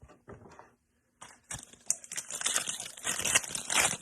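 A trading-card pack's foil wrapper crinkling as it is torn open, with a dense crackle starting about a second in after a little rustling.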